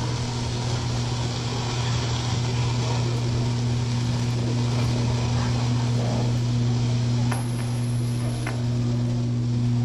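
A steady low hum, unbroken, with faint voices in the background and two light clicks late on.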